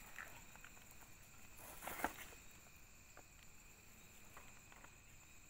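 Near silence: faint ambience with a steady high whine and a few soft rustles. The loudest sound is a brief scuffle about two seconds in.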